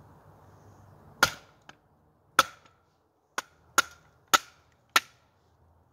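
A wooden baton striking the spine of a Timber Wolf bowie knife, driving its 11-inch steel blade down through a split of firewood and a knot. Six sharp knocks, each with a short ring from the blade, coming quicker after the first three.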